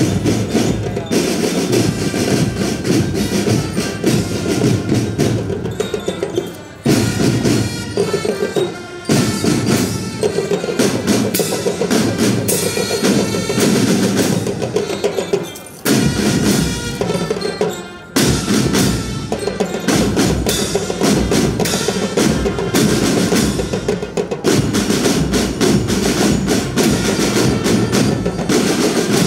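School marching band playing: brass over a drumline of marching snare drums and bass drums. The playing drops briefly about four times, each break closed by a loud accented hit.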